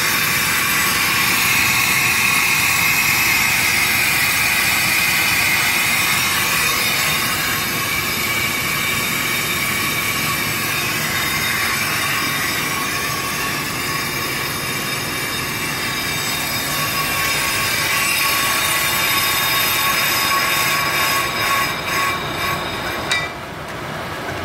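Pro-Cut on-car brake lathe machining a truck's brake rotor: the cutting tips scrape the spinning rotor with a steady high-pitched squeal over the lathe motor's hum. The squeal stutters near the end and cuts off sharply about a second before the end, as the cut finishes, leaving the lathe motor turning the freshly cut rotor.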